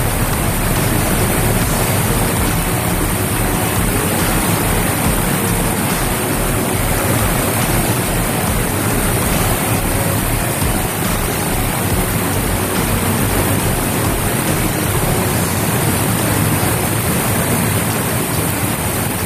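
Water rushing steadily through a concrete storm sewer tunnel, a loud, even noise.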